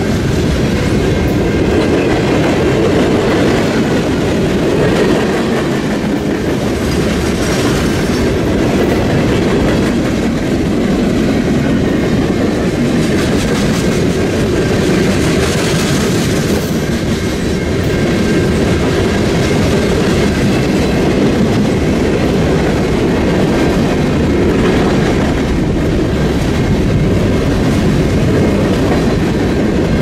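Freight train cars rolling steadily past close by: a continuous rumble of steel wheels on rail with clickety-clack over the rail joints.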